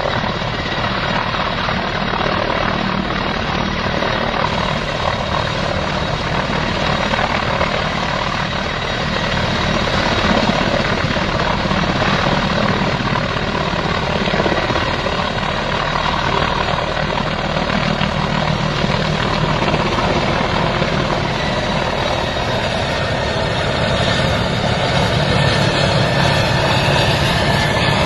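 Mil Mi-8-family helicopter flying low: a steady, loud beat of the main rotor under the running turbines, growing a little louder in the last few seconds.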